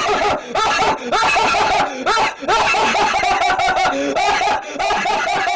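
Laughter played as a sound effect, in several bouts broken by short pauses.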